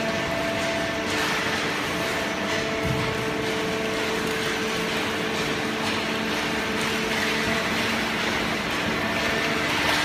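Horizontal baler and its feed conveyor running: a steady machine hum with a few constant whining tones over an even rushing noise.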